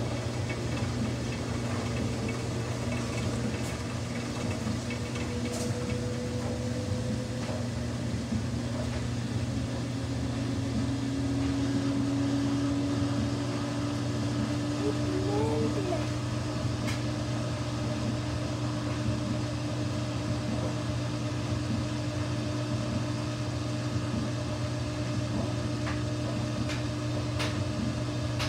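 Samsung front-loading washing machine running with a steady motor hum, and a tone that rises slowly in pitch as the drum turns.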